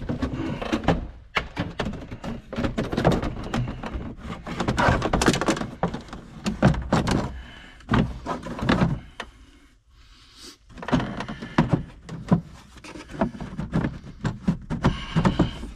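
Hard plastic cab trim panels of a John Deere 6190R being pushed and worked into place: irregular knocks, clicks and scraping of plastic against the cab, with a short pause about ten seconds in.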